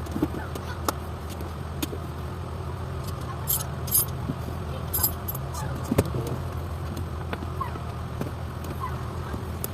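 Metal tools and parts clinking and clicking during repair work on the car's shift selector cable, with a short jingle of metal about three and a half seconds in and a sharper knock about six seconds in, over a steady low hum.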